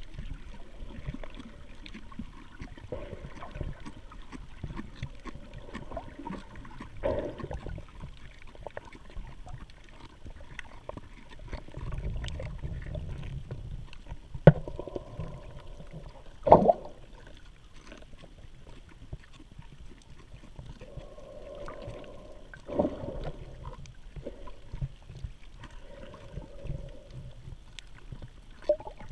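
Muffled underwater sound of water moving around a camera in a waterproof housing: a low rumble with swelling, sloshing patches and a few sharp knocks, the loudest about halfway through.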